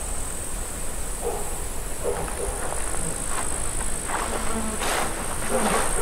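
A steady, high-pitched chirring of insects stridulating in summer grass, with scattered soft rustles and a low rumble beneath.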